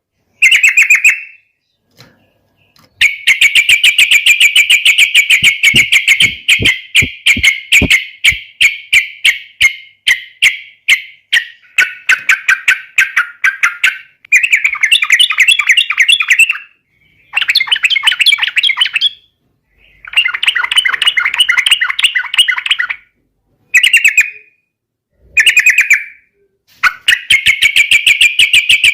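Yellow-vented bulbul singing loudly in rapid, bubbling phrases of quickly repeated notes. One long run lasts about ten seconds, followed by several shorter bursts with brief pauses between them.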